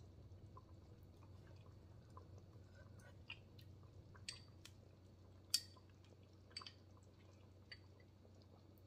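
Near silence with a handful of faint, sharp clicks, the loudest about five and a half seconds in: a metal spoon tapping a small glass bowl, with quiet chewing, while pinto beans are eaten.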